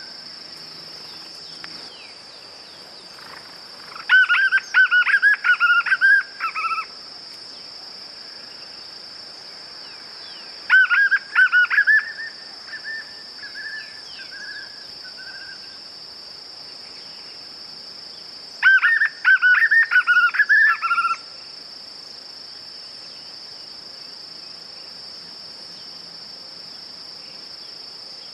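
White-eared puffbird (João-bobo) singing three bouts of quick repeated notes, each bout lasting two to three seconds, with a fainter trailing series after the second. A steady high-pitched insect drone runs beneath.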